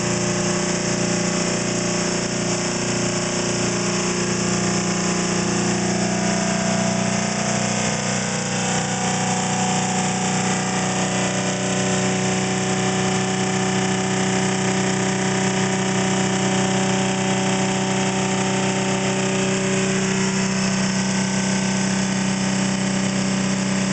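ReGenX generator test rig spinning at close to 2,000 RPM: a steady electric hum with a whine of several steady tones, which shift in pitch around 7 to 9 seconds in.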